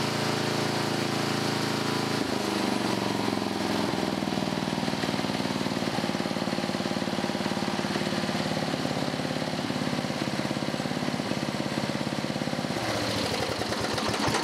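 A 12 hp Briggs & Stratton I/C flathead single-cylinder mower engine running steadily at full throttle while it warms up. Near the end it slows, its separate firing strokes become audible, and it is shut off and coasts down.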